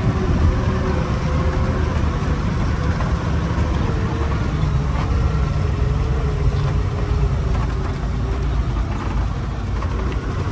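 Heavy goods truck's diesel engine running at low revs as the truck rolls slowly across a dirt yard, heard from inside the cab: a steady low rumble with a faint wavering whine above it.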